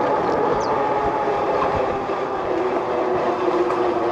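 60-volt Wired Freedom e-bike under way: a steady electric motor whine over tyre and wind noise.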